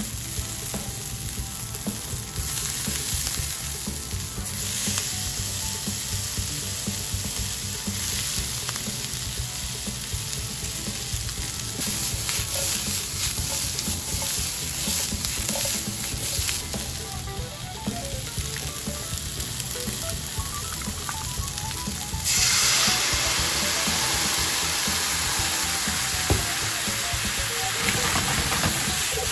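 Konnyaku and vegetables frying in oil in a nonstick frying pan, sizzling steadily while being stirred and tossed, with the utensil scraping and knocking against the pan. About three-quarters of the way through, the sizzle suddenly turns much louder and hissier as the sauce hits the hot pan and bubbles.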